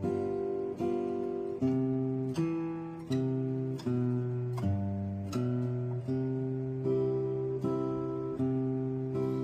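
Acoustic guitar strumming chords, one sharp strum about every three-quarters of a second, each chord left to ring before the next; no singing.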